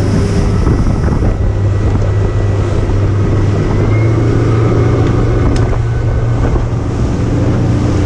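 Motorboat engine running steadily under way, with wind buffeting the microphone and water rushing past the hull. A single sharp click about five and a half seconds in.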